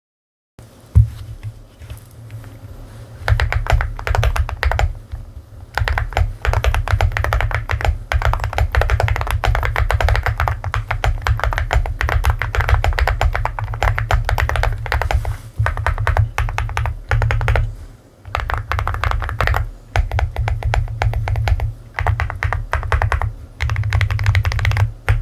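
Fast typing on an all-aluminium Attack Shark X75 mechanical keyboard, a sound test of its keystrokes. Runs of rapid key presses with a deep, full body to each stroke, broken by short pauses.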